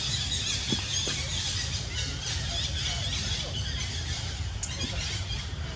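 Baby macaque giving repeated high-pitched, wavering squeaks, over a steady low rumble.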